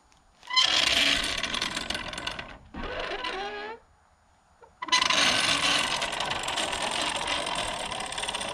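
A heavy roll of roofing underlayment in a metal carrier being dragged up a ramp of wooden boards, scraping and rattling against the wood. It comes in two long pulls, one starting about half a second in and one about five seconds in, with a pause between them.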